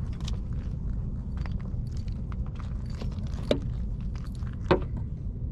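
Light clicks and knocks of a plastic hummingbird feeder being handled, with two sharper clicks about three and a half and four and three-quarter seconds in, over a steady low rumble.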